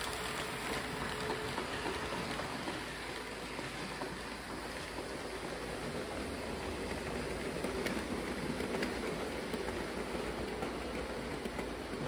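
Märklin model trains running on the layout's track: a steady rolling rattle of wheels on rails, with faint ticks now and then.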